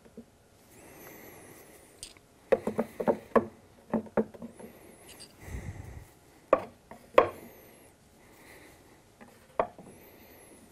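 Wera Kraftform screwdrivers being slotted one by one into the holes of a wooden wall holder: sharp clacks and knocks of handles and shafts against the wood, a quick run of them and then a few single ones.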